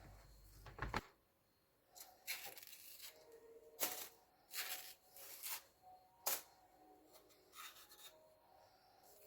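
Ripe plantain being peeled by hand: a series of faint, short scrapes and tearing sounds as the thick peel is pulled away from the fruit.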